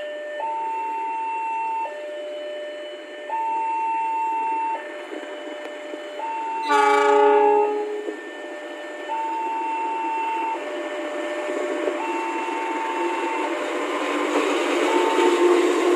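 Railway level-crossing warning alarm sounding its two-tone signal, high and low notes alternating about every second and a half, warning that a train is coming. About seven seconds in, a train horn gives a single blast of just over a second, the loudest sound, and the rumble of the approaching train swells near the end.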